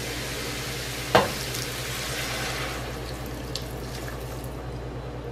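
Broth poured from a glass measuring jug into a hot steel pot of fried vegetables and bulgur: a steady splashing pour over the sizzle of the pan, with a single knock about a second in. The high hiss thins out near the end as the pour eases.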